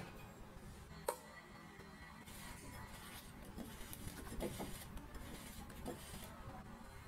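Silicone spatula folding meringue into egg-yolk batter in a glass bowl: soft swishing and scraping against the glass, with one sharp click about a second in.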